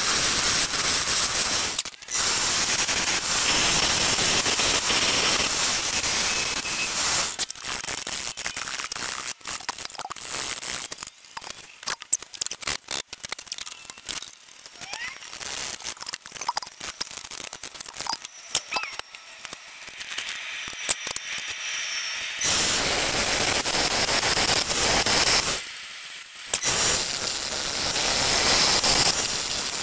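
A gouge cutting a spinning root blank on a Vicmarc wood lathe makes a steady loud hiss, broken once about two seconds in. Midway the cutting stops and there are scattered clicks and knocks of the chuck and workpiece being handled. Loud cutting starts again a few seconds before the end, with one short break.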